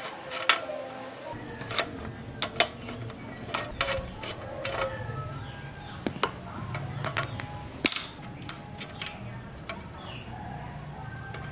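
Loose steel bicycle parts clinking and tapping as a bottom bracket spindle and its bearing cup are worked free by hand and the frame is handled. The clinks come irregularly, one louder clink about two-thirds of the way through.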